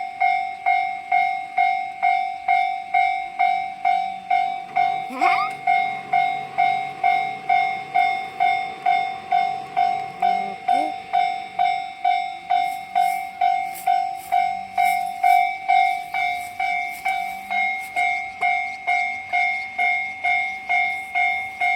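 Japanese level crossing warning bell ringing in a steady, even rhythm of about two strokes a second. About halfway through a train passes over the crossing, with a run of clicks from its wheels on the rails.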